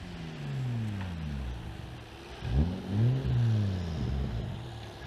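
Toyota Altezza drift car's engine with the revs falling away, then a sharp jab of throttle about two and a half seconds in; the revs rise and fall a few times as the car slides, then drop off again near the end.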